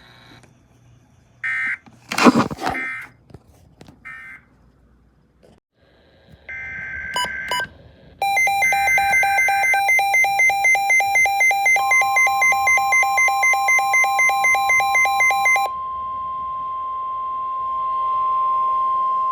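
Emergency alert signal on a NOAA Weather Radio broadcast announcing a new severe thunderstorm warning: short buzzy bursts of SAME header data, then rapid electronic alert beeping, about four a second. About halfway through, a long steady warning alarm tone joins the beeping and carries on after the beeping stops.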